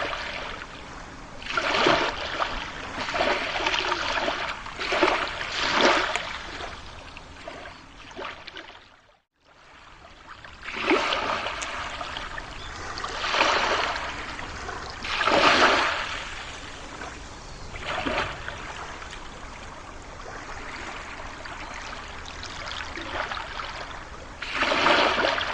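Running water, rising and falling in irregular surges every second or two, cut off briefly to near silence about nine seconds in before resuming.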